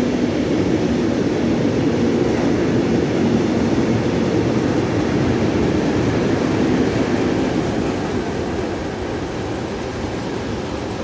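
Freight train wagons rolling past at close range: a steady rumble of wheels on the rails, easing off slightly near the end.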